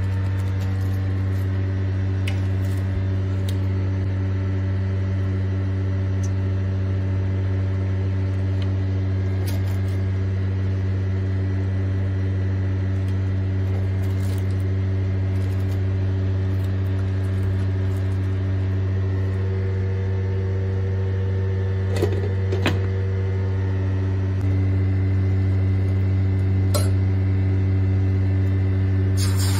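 A kitchen appliance's electric motor hums steadily, a low mains-type drone with overtones. There are a few light clicks and knocks about two-thirds of the way through, and the hum gets slightly louder near the end.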